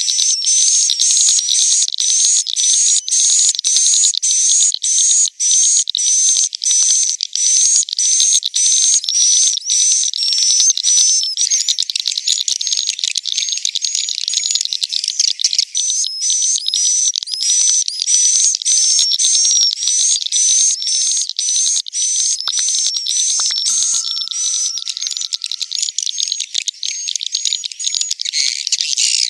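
Edible-nest swiftlets twittering inside a swiftlet house: a dense, unbroken run of high chirps, about two a second. This is the roosting call played to lure swiftlets in to roost.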